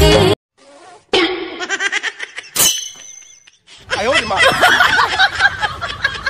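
Song music cuts off abruptly, then people's voices with snickering laughter, growing into busy overlapping talk about four seconds in.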